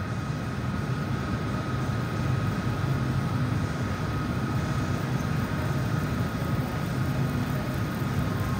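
Model train rolling along an overhead track with a steady rumble of wheels on rails that swells a little as it passes. A faint steady high tone runs underneath.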